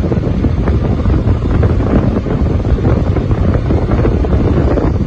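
Heavy wind buffeting on the microphone of a camera riding on a moving two-wheeler at speed, a loud, fluttering rumble.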